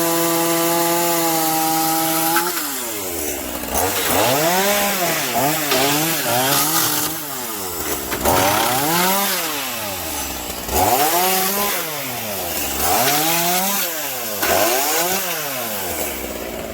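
Gas chainsaw cutting through the wooden posts of a backyard playset. It holds a steady high speed for about two and a half seconds, then its engine pitch rises and falls again and again, roughly every one and a half to two seconds.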